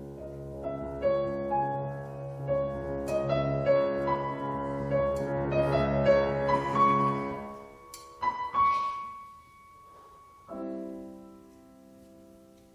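Grand piano playing a solo passage: a sustained low chord under a line of higher notes, then a few sharp struck notes, and a softer held chord near the end that dies away.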